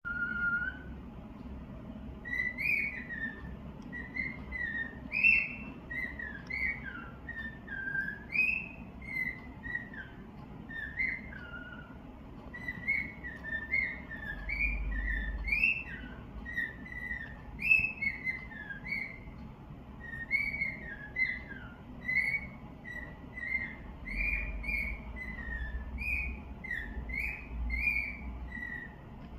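Cockatiel whistling a long run of short notes that glide up and down, one after another without a pause: the chatter of a contented bird in a good mood, exercising its voice.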